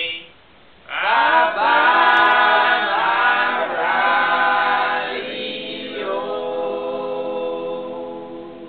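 Unaccompanied group singing: voices come in together about a second in after a brief pause and finish on a long held chord that slowly fades away near the end.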